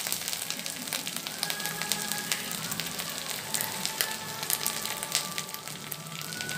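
Garlic paste and whole spices sizzling and crackling in hot mustard oil in an iron kadai, a steady dense sputter of small pops.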